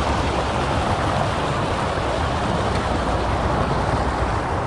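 Steady rushing of flowing creek water, with a constant low rumble underneath.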